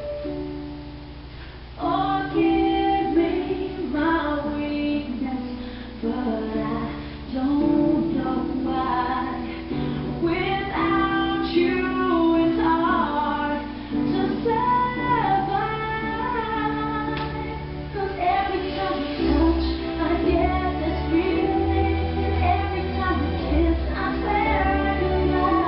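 Pop song with a female lead vocal; the singing comes in about two seconds in after a quieter opening, and a heavier bass joins about two-thirds of the way through.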